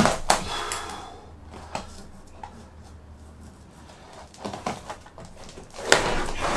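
Old lino being pried and peeled up off timber floorboards: a sharp knock and scraping at the start, a few small knocks, then a loud rasping rip near the end as a sheet is lifted loose.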